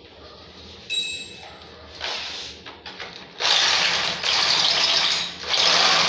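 Corded electric drill boring into a ceramic-tiled wall in stop-start runs from about two seconds in, the longest lasting about two seconds. A short ringing clink about a second in.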